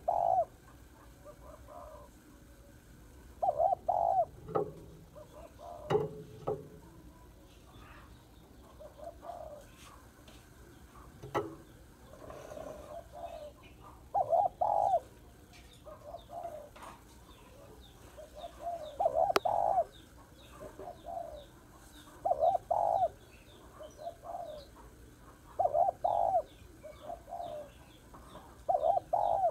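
Female spotted dove cooing: short, low coo phrases repeated about every two seconds, the call used to draw in male doves. Faint higher chirps of other small birds and a few sharp clicks come between them.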